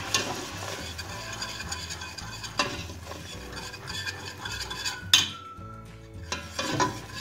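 A utensil stirring and scraping flour through melted margarine in a stainless steel pot, toasting the flour into a roux. There is one sharp knock about five seconds in.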